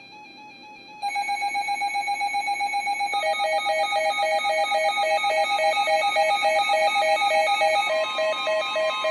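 Electronic weather-alert alarms beeping: a rapid pulsing electronic tone, loud from about a second in, joined a couple of seconds later by a second pulsing beep at a lower pitch. Near the end a steady higher tone joins them, typical of the NOAA Weather Radio warning alarm tone that announces a new alert.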